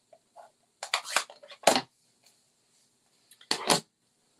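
Clatter of hard plastic stamping supplies, such as a clear acrylic stamp block and an ink pad, being handled and set down on the craft mat. There is a quick run of sharp clacks about a second in and another near the end.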